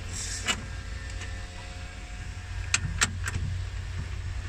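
A few short clicks and knocks of the black plastic wire harness box over a Jaguar F-Pace's battery being worked loose from its steel bracket, one about half a second in and three close together near three seconds in, over a steady low rumble.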